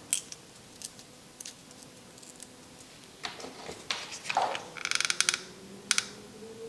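Scissors snipping into the end of a rolled craft-paper stem to split it: a few separate short snips with paper rustling, and a brief rapid run of fine ticks about five seconds in.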